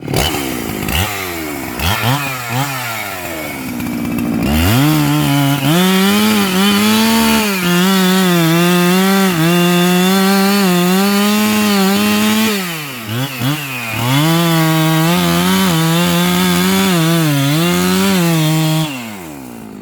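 Husqvarna 390XP two-stroke chainsaw revved in short blips, then held at full throttle cutting into sengon wood, its pitch wavering as the chain takes the load. It drops back and is revved again about two-thirds of the way through, cuts again, and falls back toward idle near the end.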